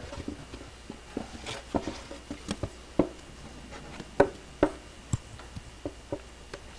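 Irregular light knocks and clicks of a wooden picture frame being handled, turned and pressed on as a layered wooden relief picture is fitted into it. There are about a dozen sharp taps, one every half second or so.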